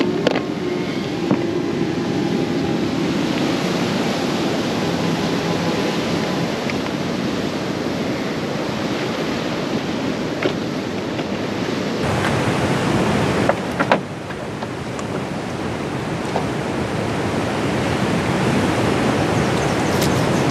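Steady rushing outdoor noise of wind and moving water, with a few light clicks. The sound changes abruptly about twelve seconds in.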